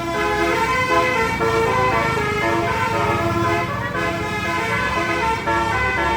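Bus 'basuri' musical air horn playing a telolet tune, its notes stepping up and down in quick succession, over a low engine rumble.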